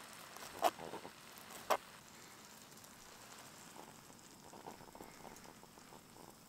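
Food sizzling faintly in a camp cooking pan, with two sharp clinks about half a second in and again a second later.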